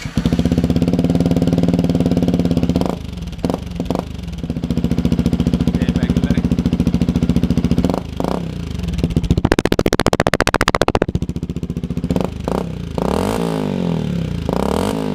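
Yamaha WR125X's single-cylinder four-stroke engine running through an Akrapovic exhaust. It idles with quick throttle blips about three to four seconds in and again at eight. A longer high rev comes around ten seconds in, and several revs rise and fall near the end.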